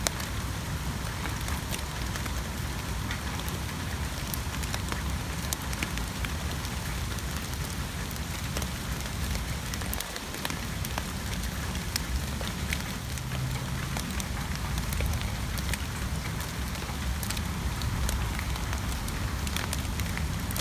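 Steady rain falling on wild geranium leaves: an even hiss scattered with many sharp ticks of single drops striking the foliage, over a low rumble underneath.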